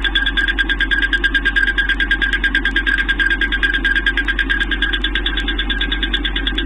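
Chevrolet Express 3500 6.0L V8 running with a rapid, steady knocking at about seven beats a second. The knock comes from a broken flexplate, not a rod knock.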